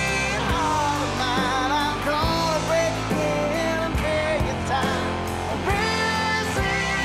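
Background music: a rock song with guitar.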